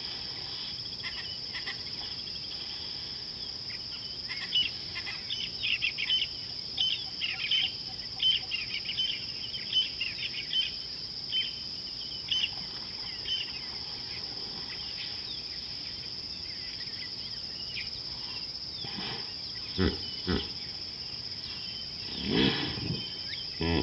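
A steady high-pitched insect drone over the bush, with birds chirping repeatedly through the first half. Near the end there are a few short, lower animal calls.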